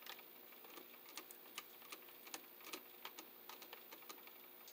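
A dozen or so faint, irregular small clicks of a screwdriver turning a receptacle terminal screw, tightening a phase wire down under its plate.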